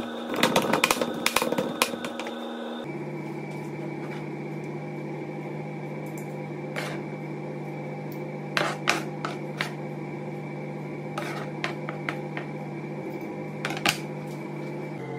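Kitchen knife chopping rapidly on a plastic cutting board, dicing pig's head and ears for sisig, for about the first three seconds; then scattered clicks and scrapes of the knife and fork on the plate and board, the last as they are set down. A steady drone runs underneath.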